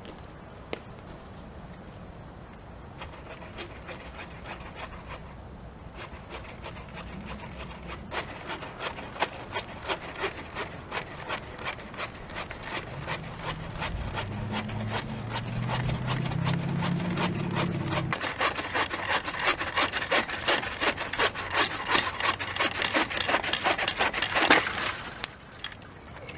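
Zippo AxeSaw's bow saw blade cutting through wood in back-and-forth strokes, starting slow and soft, then getting louder and quicker, about two to three strokes a second, before stopping abruptly near the end. A low hum sounds underneath for a few seconds midway.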